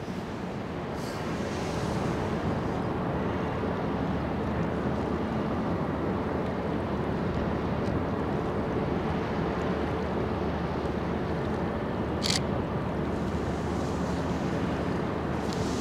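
Steady low hum and rumble of the passing cruise ship Bolette's machinery, with a faint steady tone, under wind on the microphone and the wash of water. A brief sharp tick comes about twelve seconds in.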